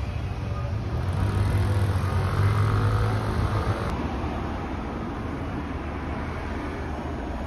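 Road traffic: a car going by with a low rumble that peaks about two and a half seconds in, then a steadier street hum.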